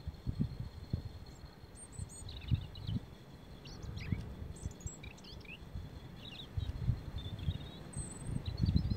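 European robin singing subsong: soft, rambling phrases of thin, high twittering notes with pauses between them, starting about two seconds in. A low rumbling runs underneath.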